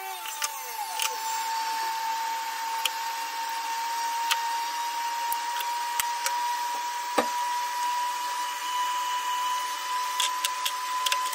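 A power tool motor winds down in the first second, and a steady high motor whine runs on under a few light knocks of pine strips being set down on the table.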